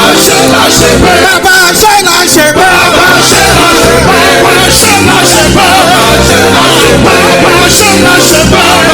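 Loud church praise music with a steady beat: drums, bass and keyboard backing congregational singing of a gospel chorus.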